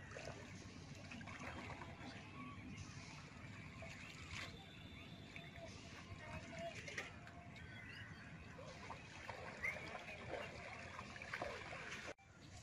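Scattered bird chirps over a low outdoor background, with soft water sloshing from someone wading waist-deep.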